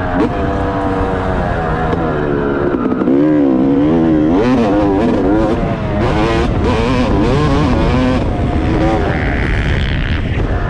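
Yamaha YZ250 two-stroke motocross engine heard from on board while being ridden on a dirt track, revving up and dropping back again and again as the throttle is worked through corners and straights.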